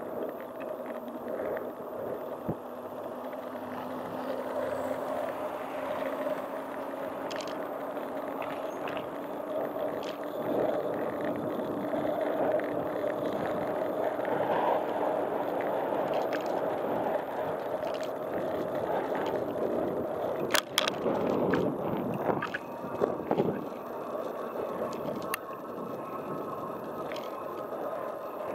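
Wheels rolling steadily along a paved street with a steady hum, broken by a few sharp clicks and knocks about two-thirds of the way through.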